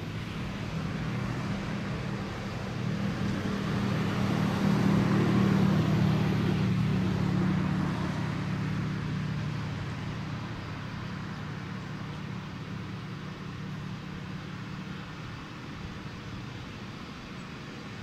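Federal Signal STH-10 siren winding down after its test, now a low, steady hum nearly five minutes into its coast-down. A car passes, loudest about five seconds in and fading away.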